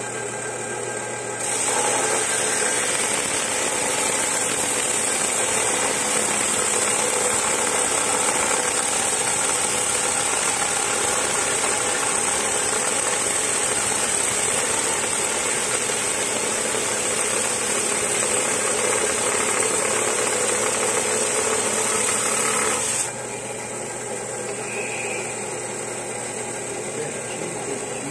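Small lapidary trim saw running. From about a second and a half in until about twenty-three seconds, the blade saws into a quartz crystal holding green tourmaline, a loud steady grinding hiss. It then drops back to the quieter hum of the saw running free.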